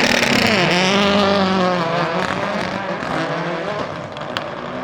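Subaru Impreza GC8 Group A rally car's turbocharged EJ20 flat-four at high revs; about half a second in the pitch drops sharply as the throttle is lifted, then the revs waver and climb again before the sound fades as the car moves away. A single sharp crack near the end.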